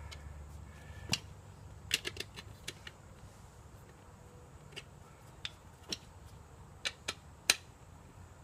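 Light metal clicks and clinks, about a dozen at uneven intervals with the sharpest one near the end, as the nuts and bolts joining the halves of a split-rim wheel are fitted and hand-tightened.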